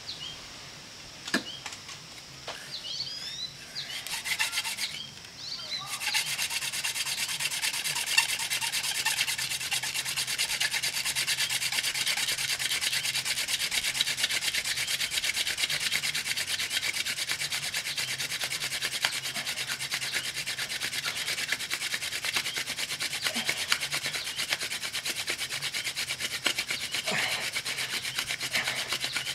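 Hand drill friction fire: a wooden spindle is spun back and forth between the palms, its tip grinding into a wooden hearth board. It makes a steady rubbing hiss that sets in about six seconds in and keeps going.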